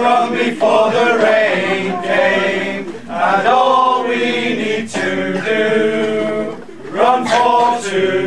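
A group of men singing together unaccompanied, holding long notes in harmony, with short breaks between phrases.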